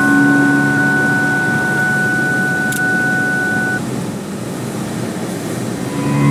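Vehicle running, heard from inside the cabin: a steady rumble with road noise. A steady high tone stops about four seconds in, and low sustained music tones come back near the end.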